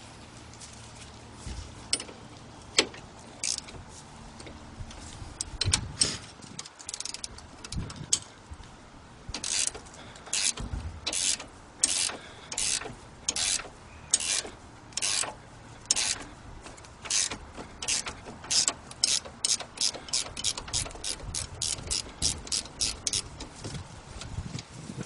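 Ratchet spanner clicking as the brake caliper's slider-pin bolts are undone. A few scattered clicks come first, then from about nine seconds in a regular run of short ratcheting bursts, one per back-swing, that quickens toward the end.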